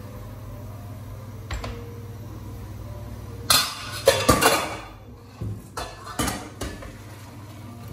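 Stainless steel pots clanking and knocking at the kitchen sink: a single knock, then a burst of clattering about three and a half seconds in, followed by a few lighter knocks.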